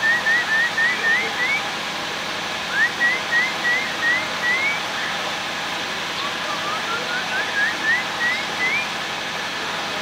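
Oriental magpie-robin singing: three phrases of short rising whistles, each phrase of six or more quick notes stepping up in pitch. The third phrase starts lower and is longer. Under the song runs a steady hiss.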